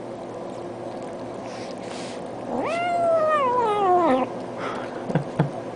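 A domestic cat meows once: one long meow that rises sharply and then slides slowly down in pitch. A steady hum runs underneath, and two soft knocks come near the end.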